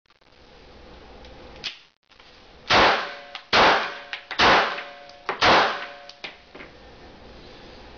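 Four gunshots fired in quick succession, a second or less apart, each sharp crack trailing off in a short metallic ring.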